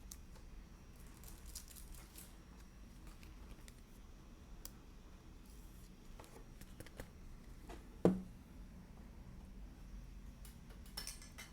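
Quiet handling of trading cards and their packaging: faint rustling and light clicks, with one soft thud about eight seconds in.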